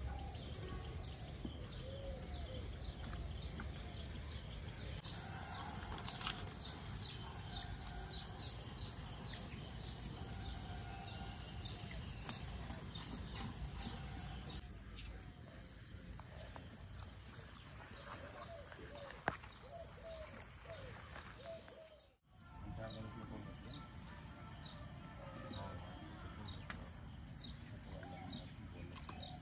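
Outdoor ambience of birds chirping repeatedly, several short high calls a second, over a steady low rumble of background noise.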